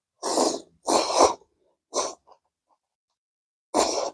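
A person slurping spicy Korean instant noodles off chopsticks: two long slurps in the first second and a half, a short one about two seconds in, and another near the end.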